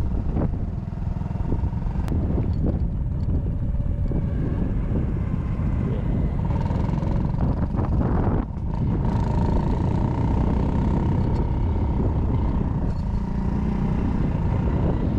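Honda Cross Cub 110's small single-cylinder four-stroke engine running steadily while riding, with heavy wind rumble on the microphone and a brief dip about eight and a half seconds in.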